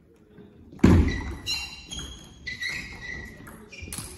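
A heavy thud about a second in, followed by several short, high squeaks, typical of shoe soles on a sports-hall floor as a table tennis player moves about.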